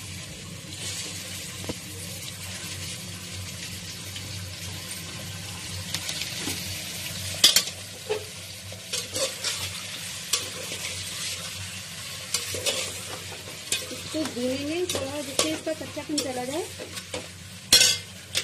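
Raw chicken pieces sizzling in hot oil in a metal pot while a perforated metal skimmer stirs them, clinking and scraping against the pot. The clinks come often in the second half. This is the first frying of the meat for a chicken korma, to take away its rawness.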